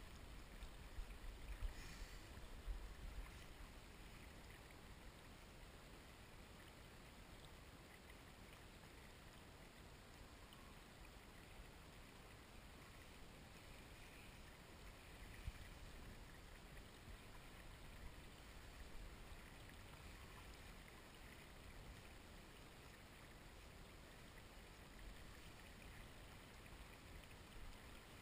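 Near silence with the faint, steady rush of flowing river water. A few soft low thumps come in the first three seconds.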